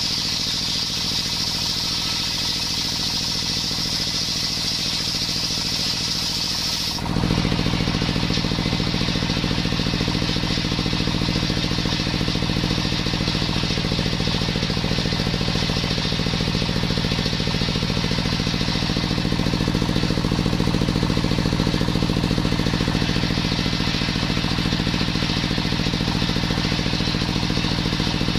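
Belt-driven table circular saw cutting coconut wood, powered by a stationary engine running steadily. For about the first seven seconds a high-pitched whine from the blade rides over the engine. Then the sound changes abruptly: the whine drops away and the engine's low running gets louder.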